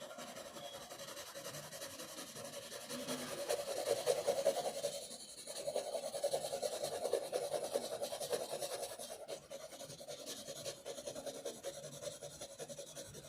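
Pencil scratching on paper in rapid, continuous shading strokes, with a brief pause about five seconds in.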